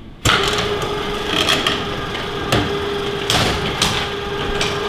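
Electric sectional garage door opening. Its motor starts abruptly and runs with a steady hum, while the door rattles and knocks as its panels roll up.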